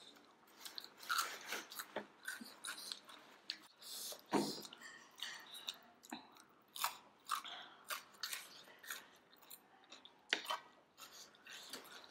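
People chewing and biting while eating momo dumplings and noodles: a string of short, irregular mouth clicks and smacks, with a louder one about four seconds in.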